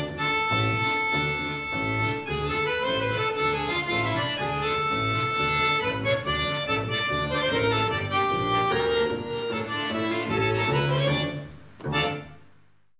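Accordion and double bass playing a tune together: held, shifting accordion chords over a steady pulse of low bass notes. The piece ends on a short final chord near the end and dies away.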